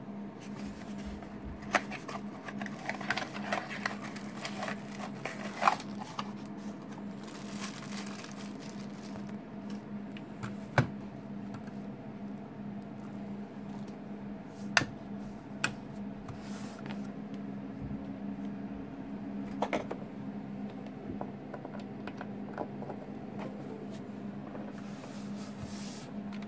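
Handling of a cardboard box and plastic packaging: rustling and crinkling, with a few sharp knocks or clicks as things are set down on the desk, over a steady low hum.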